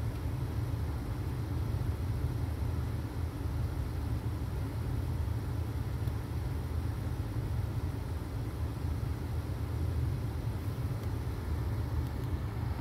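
Steady low rumble of a 2001 Chevy Cavalier's engine running, heard from inside the car's cabin.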